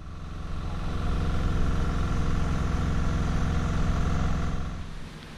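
A small engine running steadily at an even speed, fading out near the end.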